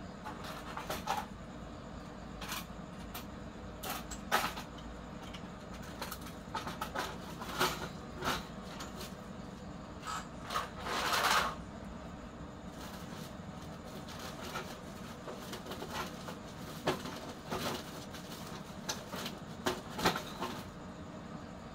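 Scrap computer motherboards clicking and clattering as they are picked from a pile and dropped into a woven plastic sack, with a longer rustle of boards and sack about eleven seconds in, over a low steady hum.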